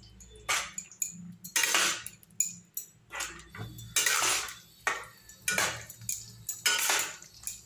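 A spatula stirring thick paneer gravy in a pan, scraping and knocking against the pan in irregular strokes, about one or two a second, as freshly added ground poppy-seed paste is mixed in.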